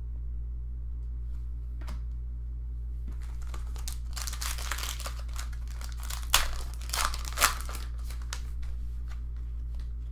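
Foil trading-card pack wrapper crinkling as it is torn open, with three sharp tearing snaps near the middle.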